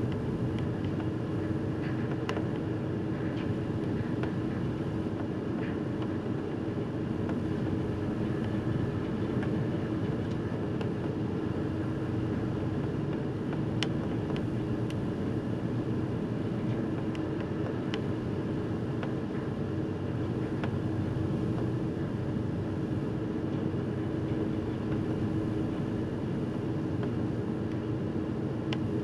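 Car ferry under way: a steady rumble of the ship's engines and machinery mixed with wind and sea noise over the open bow, with a constant drone running through it.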